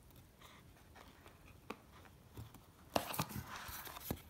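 Handling noise of a sheet of cardboard and trading cards in a card box: faint at first, then a click about three seconds in, a brief scraping rustle, and another click near the end.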